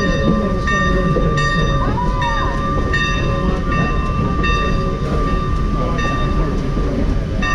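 Train car rolling along the track, heard from inside the car through an open window: a steady low rumble, a steady high squeal, and a regular click about every three-quarters of a second.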